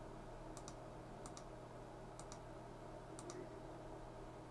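Faint clicks, mostly in pairs about once a second, from a control being clicked while the converter's current setting is raised step by step, over a low steady hum.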